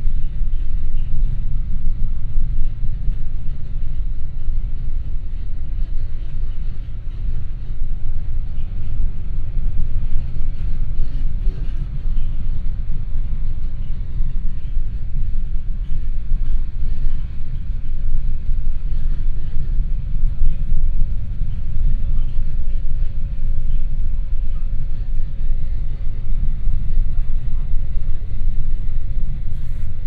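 Cabin of a moving passenger train: a steady deep running rumble, with a faint constant hum above it.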